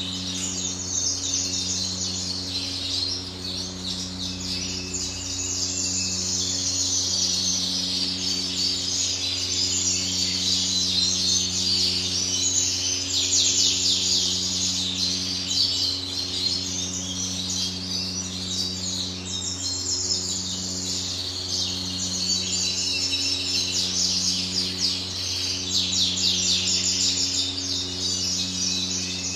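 Several caged canaries chirping and trilling almost without pause, over a steady low electrical hum.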